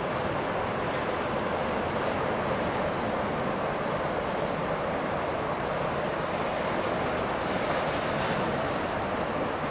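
Steady rushing of water and wind, even in level with no distinct events.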